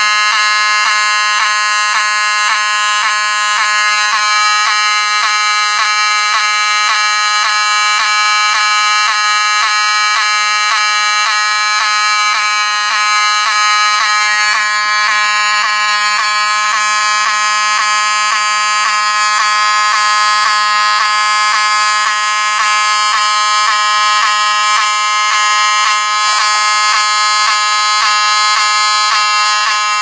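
Spectronics-branded Wheelock 7002T-24 mechanical fire alarm horn sounding continuously, set off from a pull station. It gives a loud, harsh buzzing tone with short, regular dropouts, the horn skipping a beat with each flash of the unit's strobe.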